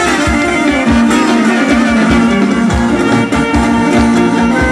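Traditional Macedonian folk dance music: melody instruments over a steady low drum beat of about three strokes a second.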